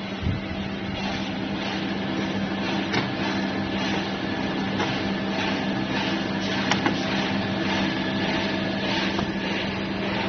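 Automatic bottle filling and capping line running: a steady machine hum with a noisy rattle of conveyor and moving parts, and a few sharp clicks, the clearest about two-thirds of the way through.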